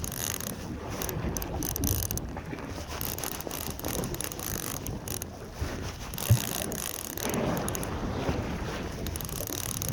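Line-counter baitcasting reel being cranked as a hooked red sea bream is wound up, its gears ticking under wind on the microphone and boat noise. A single knock sounds a little past halfway.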